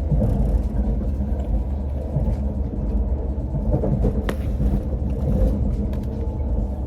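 Moving train heard from inside the carriage: a steady low rumble, with one sharp click about four seconds in.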